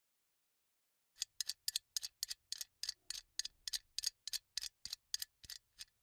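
A quick, regular run of sharp ticking clicks, about three to four a second and some in close pairs, starting about a second in.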